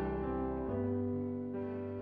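Worship band playing held chords between sung lines, with a bowed electric violin and electric guitar over a keyboard. The chord changes about two-thirds of a second in, as deeper bass notes come in.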